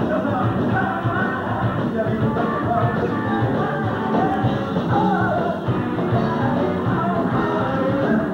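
Live rock band with a singer: sung vocals over guitar and drums, continuous and loud, with a dull, muffled top end.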